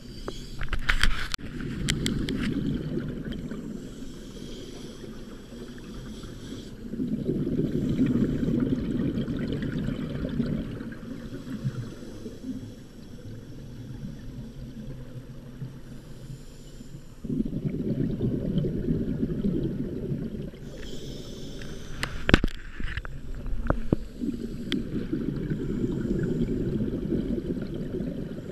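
Scuba breathing heard underwater through a camera housing: regulator exhaust bubbles rumble in long bursts about every seven or eight seconds, with quieter gaps between for inhaling. A few sharp clicks come near the start and again about twenty-two seconds in.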